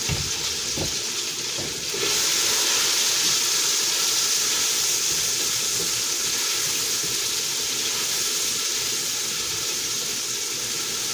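Onions sizzling in hot oil in a pan, a steady hiss that gets louder about two seconds in, with two knocks near the start.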